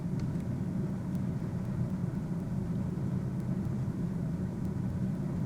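Steady low rumble of background noise with no distinct events or changes.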